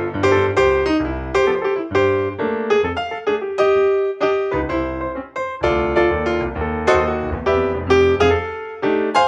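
Background piano music: a quick, steady run of struck piano notes.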